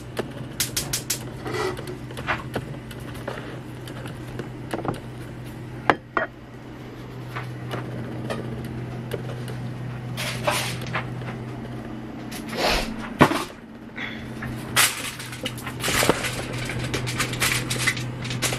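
Cookware being handled on a gas stovetop: a pan and utensils clink and knock, with a quick run of clicks in the first second and a few louder knocks later, over a steady low hum.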